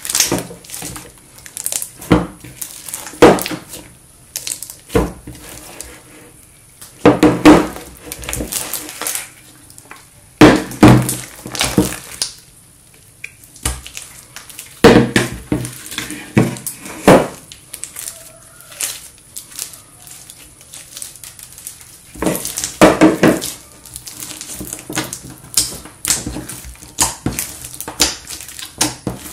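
Slime with food mixed into it being squished and worked by hand, giving irregular wet squelches in bursts, with occasional knocks.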